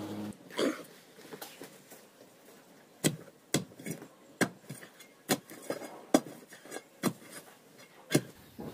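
A long digging bar driven repeatedly into stony ground. It makes sharp strikes, about nine of them from about three seconds in, roughly one every half second to a second.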